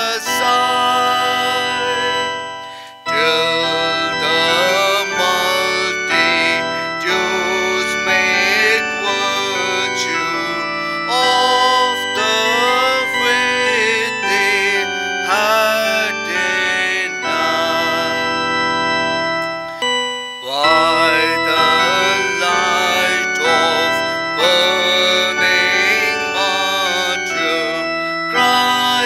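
Hymn music: a singing voice over sustained, organ-like electronic keyboard chords, with two brief breaks between phrases, about three seconds in and about twenty seconds in.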